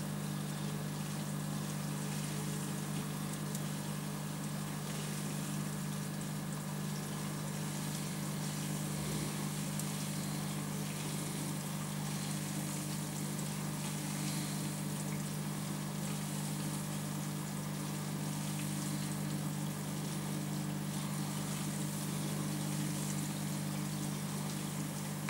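Aquarium pump or filter humming steadily, with water trickling and bubbling in the tank.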